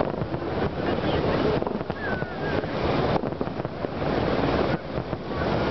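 Fireworks display heard from a distance: a continuous rumble of bangs and crackling, with wind buffeting the microphone.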